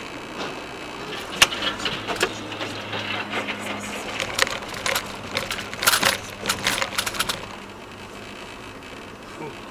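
Sharp clicks and rattles in a moving car over steady road noise, a rapid irregular run lasting about six seconds before only the road noise is left.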